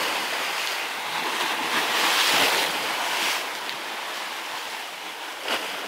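Sea surf washing over a rocky shore, with wind buffeting the microphone. The wash swells louder about two seconds in, then eases.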